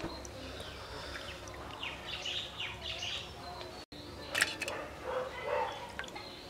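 Birds chirping in the background, then a short wet knock about halfway through as raw hilsa fish steaks are set down in a glazed clay bowl.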